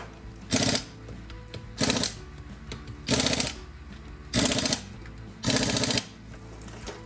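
Pneumatic impact wrench hammering on a car's wheel lug nuts in five short bursts about a second apart, during a tyre change. Background music plays underneath.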